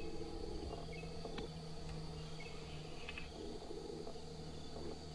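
Faint outdoor ambience of insects chirping, with a steady low hum and a few sharp clicks.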